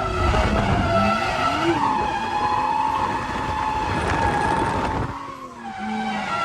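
Nissan R32 Skyline drifting: the engine is held at high revs with the tyres squealing. About five seconds in there is a short lift off the throttle before it comes back on.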